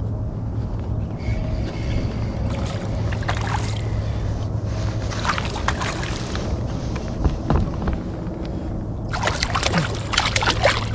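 Water splashing as a hooked largemouth bass thrashes at the surface beside the kayak, loudest in the last two seconds as it is brought to the landing net.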